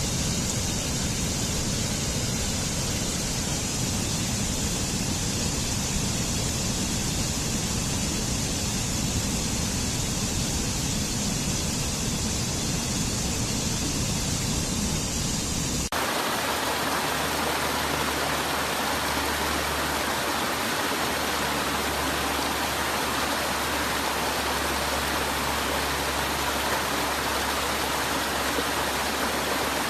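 Waterfall: a steady loud rush of falling water. About halfway through it switches suddenly to a different rush with less deep rumble.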